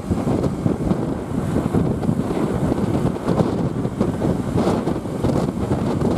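Wind buffeting the microphone over the low rumble of road traffic, with no horn sounding.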